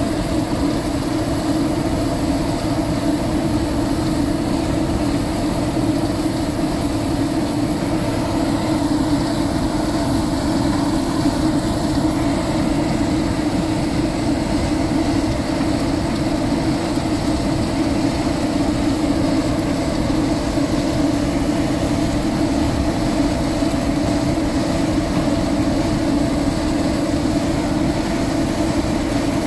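Claas Lexion 550 combine harvester working wheat under steady load, its engine and threshing machinery running with a constant hum and a faint high whine.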